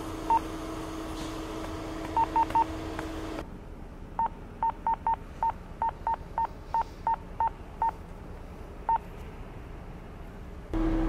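A series of short electronic beeps at one pitch, irregularly spaced, over a steady hum. The hum drops out about three seconds in, and a dozen more beeps follow over fainter hiss.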